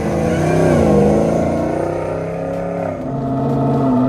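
Supercharged 6.2-litre LT4 V8 in a Land Rover Defender 90 revving. The pitch dips, climbs again, then drops about three seconds in to a steady idle.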